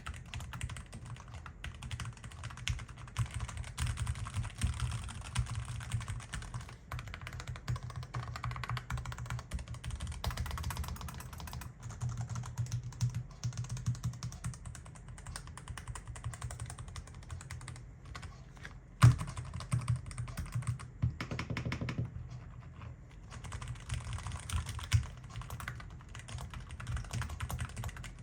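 Typing on a Corsair Vanguard Air 99 keyboard: a steady stream of keystroke clacks, with one noticeably louder keystroke about two-thirds of the way through.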